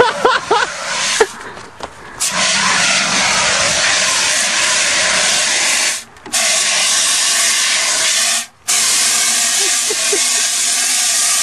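Fire extinguisher discharging onto a fire: a loud, steady hiss that starts about two seconds in and stops for a moment twice as the lever is let go.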